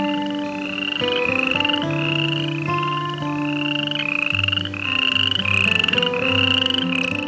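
A short, pulsed, rising animal call, repeated about one and a half times a second, over soft background music with sustained low notes.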